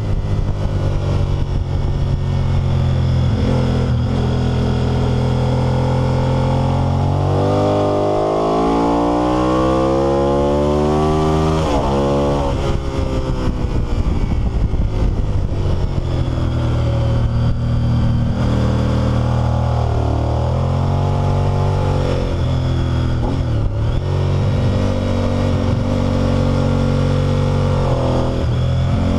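Honda VTR1000 SP1's 90-degree V-twin engine running hard on track, heard close up from the bike itself. The engine note climbs steadily for several seconds, drops abruptly about twelve seconds in, dips again around twenty seconds in and then pulls back up.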